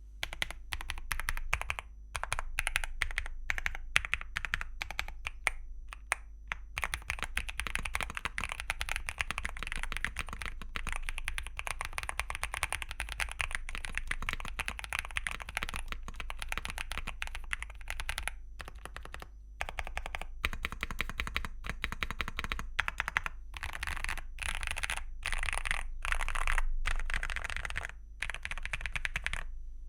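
Typing on a GMK67 mechanical keyboard with Akko V5 Creamy Blue Pro linear switches and Cherry-profile PBT keycaps, tape-modded and foam-dampened: keystrokes clacking in fast, dense runs broken by short pauses.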